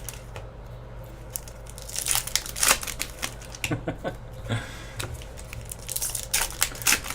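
Trading-card pack wrappers crinkling and tearing as hockey card packs are opened and the cards handled: irregular rustles and sharp crackles.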